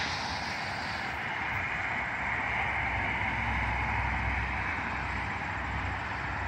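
Steady rush of passing highway traffic, with a low rumble that swells about three seconds in and fades a couple of seconds later.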